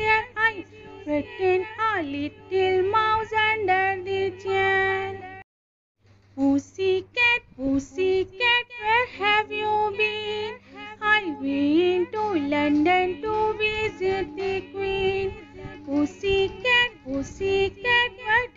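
A nursery-rhyme song: a high, child-like singing voice over a steady synthesized backing. It breaks off into a moment of silence about five and a half seconds in, then resumes.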